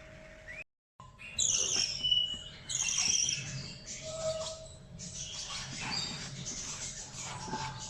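Budgerigar chick calling: a few short rising chirps, then, after a brief break, loud, harsh, repeated begging calls typical of a baby budgie being hand-fed.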